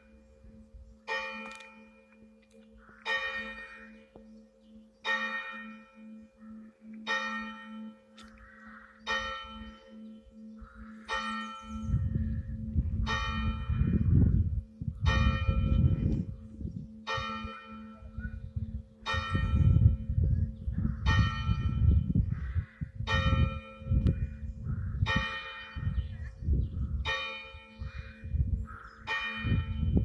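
Seventeenth-century tenor church bell, newly rehung and sounded by its mechanised chime, tolling one note about every two seconds, each stroke ringing on with a steady hum between strokes. A low, irregular rumble joins about twelve seconds in.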